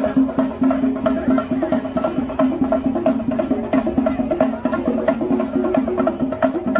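Festival dance music: a melody wavering over a steady held note, driven by quick, even drumbeats.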